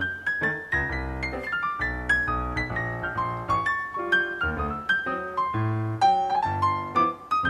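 Background piano music: a melody of quick notes over chords.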